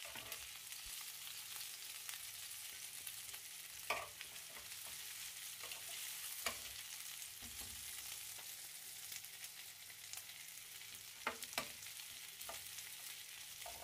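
Lamb chops, now cooked through, sizzling in an oiled grill pan: a steady, fairly faint hiss broken by a few sharp clicks.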